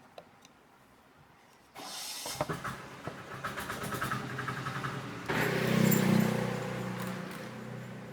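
A small electric motor starts up about two seconds in and runs with a steady hum and light rattling, jumps louder about five seconds in, then gradually eases off.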